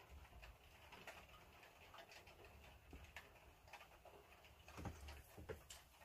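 Near silence with faint scattered clicks of handling: fingers turning a small plastic action-figure head sculpt.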